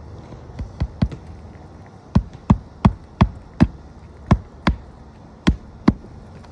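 A hammer striking roofing nails to fasten a shingle back down: a few light taps, then about nine sharp blows at a steady pace of roughly three a second.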